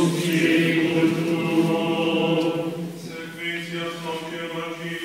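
Latin Gregorian chant sung in slow, held notes, louder at first and softer after about three seconds.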